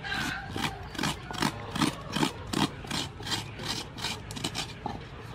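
Fresh coconut meat being shredded out of a half shell with a hand-held metal coconut scraper: rasping scrape strokes in an even rhythm of about two to three a second.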